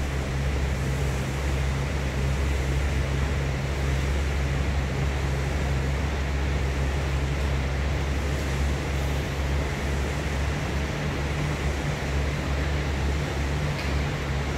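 Concept2 SkiErg's air-resistance flywheel spinning under continuous pulls: a steady whirring drone.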